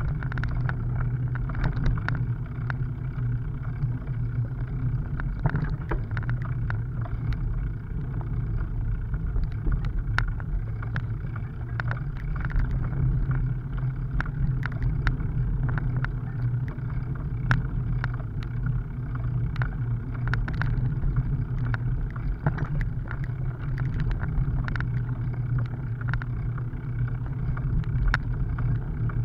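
Bicycle rolling over cracked, patched asphalt: a steady low rumble of tyres on the rough road surface, with frequent small rattles and clicks from the bike as it jolts over the bumps.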